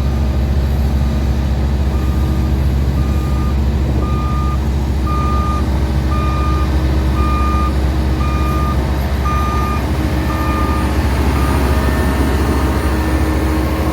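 Reversing alarm of a heavy construction vehicle beeping about once a second over its steady diesel engine, stopping near the end.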